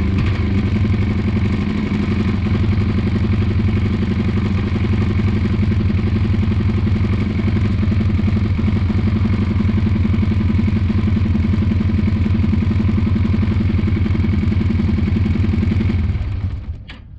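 2002 Yamaha 225 motorcycle's single-cylinder four-stroke engine idling steadily on choke just after a start. Near the end it slows and dies.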